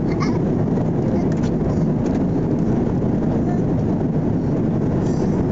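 Steady drone of an airliner's cabin noise, the engines and rushing air heard from inside the cabin, low and even throughout.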